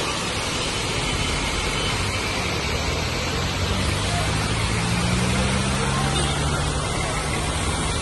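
Steady rushing noise with a vehicle engine running underneath, its low hum coming in about three seconds in and holding on.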